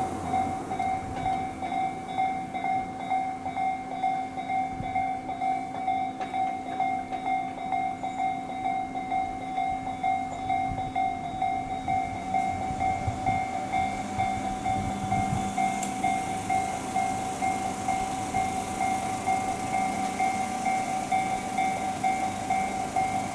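Electronic Japanese level-crossing warning bell ringing in an even, repeating ding-ding, with a Tobu Tojo Line train passing over the crossing through the middle of it.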